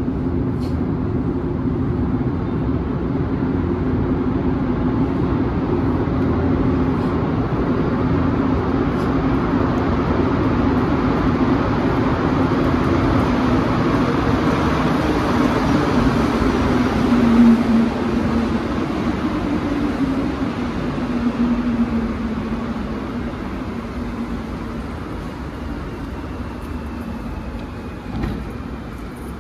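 Rubber-tyred Montréal metro train coming into the station and braking to a stop: a loud, steady rumble with a low hum that slowly falls in pitch as the train slows. It is loudest a little past halfway and eases off as the train halts near the end.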